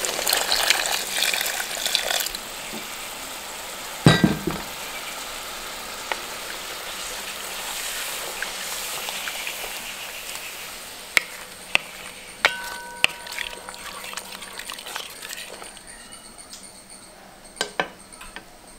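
Water poured into a pot of sambar on the heat for the first couple of seconds, then a loud knock about four seconds in. After that comes the steady hiss of the curry cooking and a few sharp metal clinks near the end.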